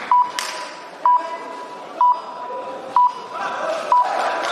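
An electronic beeper sounds five short beeps, one a second, all at the same pitch, with a faint steady tone between them, over hall noise.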